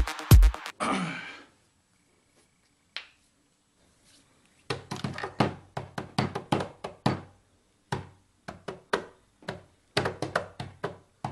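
Fingers and palms drumming on a flat surface: clusters of quick knocks and taps, several a second, starting about five seconds in. Before that, a short electronic dance music sting ends within the first second.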